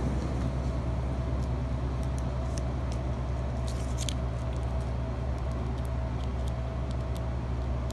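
Steady low mechanical hum, with scattered faint light clicks as alligator-clip jumper leads are handled and clipped onto a 9-volt battery and a small carburetor solenoid.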